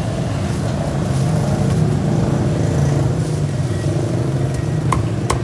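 A motor vehicle engine running steadily as a low drone. Near the end, two sharp knocks of a cleaver striking a wooden chopping block.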